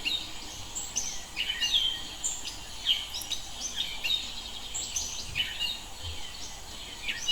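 Birds singing: many short chirps and quick falling whistles from several birds, one after another, over a faint steady background hiss.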